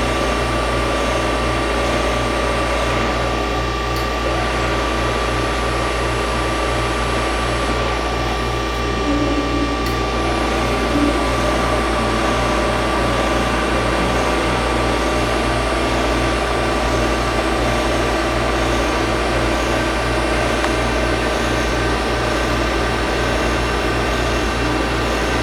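5-axis CNC milling machine running: a steady mechanical hum with a constant high whine and a fast, even pulsing underneath.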